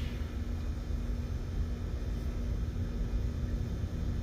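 A steady low rumble with a faint constant hum underneath; no clinks or knocks of parts being handled.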